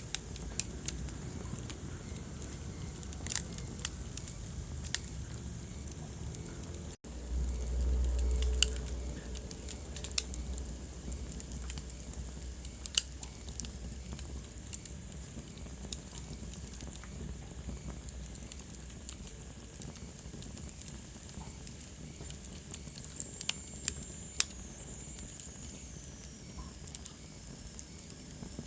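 Wood fire burning in a fireplace, crackling with frequent sharp pops over a steady low hiss. The sound cuts out for an instant about seven seconds in, followed by a low rumble for a couple of seconds, and a faint high whistle falls in pitch near the end.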